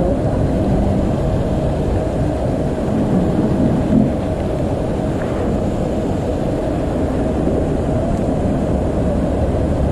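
Steady low rumble of wind buffeting the microphone outdoors, with a brief bump about four seconds in.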